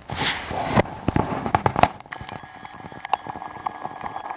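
Loud close rustling with sharp clicks for about two seconds, then a quieter stretch of several steady thin tones with rapid, irregular crackling clicks: the unexplained eerie sound heard at a disused brick factory.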